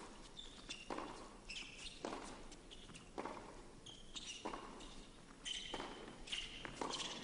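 Tennis rally: racket strikes on the ball about once a second, with short high-pitched squeaks of shoes on the court around the hits.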